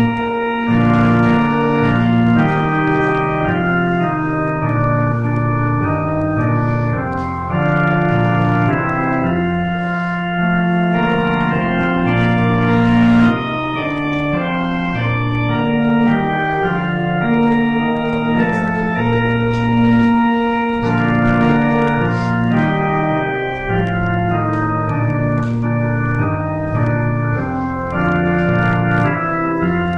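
Organ playing a slow piece in sustained chords, the notes held and changing every second or two.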